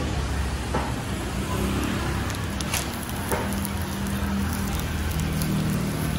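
Bánh xèo batter sizzling in small cast-iron pans over gas burners, a steady crackling hiss with the burners' low rush beneath. A low steady drone runs underneath, and a few light clicks come in the first half.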